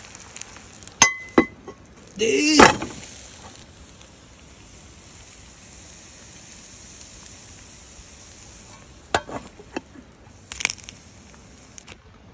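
A few sharp clinks and knocks of utensils against cookware: two about a second in and a cluster from about nine to eleven seconds. Around two and a half seconds there is a brief, louder sound whose pitch slides, the loudest moment, over a faint steady background.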